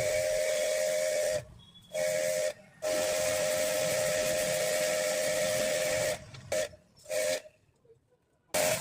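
Jet pump pressure washer spraying water during an air conditioner wash: a loud steady hiss with a steady pump whine, cut off and restarted several times as the spray gun trigger is released and squeezed again, with a longer stop near the end.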